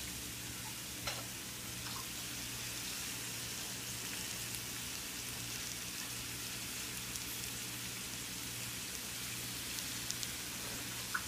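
Red-cap boletus mushrooms sizzling steadily as they fry in olive oil in a stainless steel pan, over a low steady hum. There are a couple of faint clicks.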